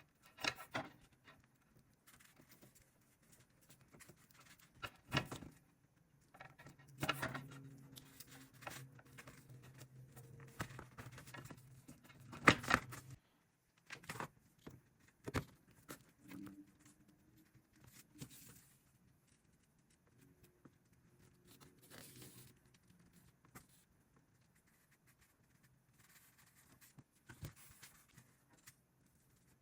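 Hands working dry craft materials: scattered rustling, tearing and crinkling with sharp clicks and taps. A low steady hum runs under the handling for about six seconds in the middle.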